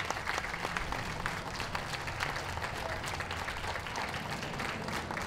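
Audience applauding steadily, many separate claps over a low background rumble.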